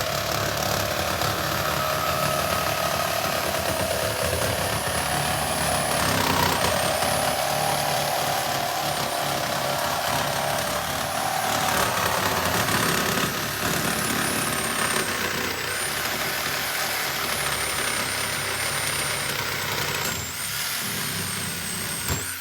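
Angle grinder cutting through the steel of an ATM's casing: a loud, steady grinding with a high whine. Near the end the cut goes all the way through and the grinder is switched off, its whine falling as the disc spins down.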